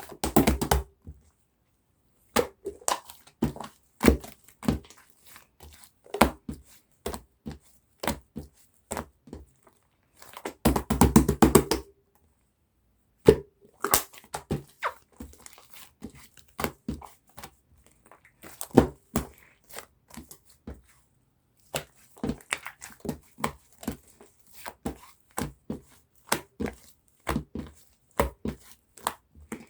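Bubble-filled slime being squished and stretched by hand: a steady run of sharp, wet clicks and pops as trapped air bubbles burst. Denser bursts of crackling come right at the start and again about eleven seconds in.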